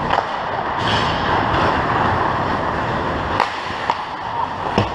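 Ice hockey play: a steady rush of skates scraping on the ice, with a few sharp stick-and-puck clacks, the clearest near the end.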